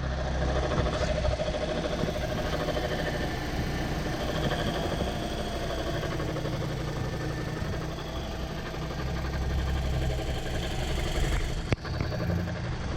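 Toyota Corolla's engine running steadily with a low hum, with a single sharp click shortly before the end.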